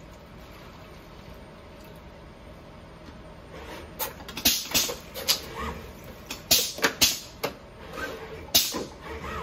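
Robot arm handling plastic cups and lids: a faint steady hum, then from about four seconds in a run of sharp, irregular clicks and clacks.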